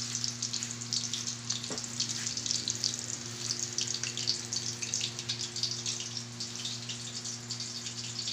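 Chicken roulades deep-frying in hot oil in a pan: a steady crackling sizzle, over a steady low hum.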